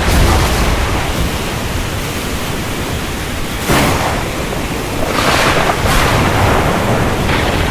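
Heavy rain storm: a steady, dense hiss of downpour over a low rumble, swelling in gusts, with a sudden surge about four seconds in.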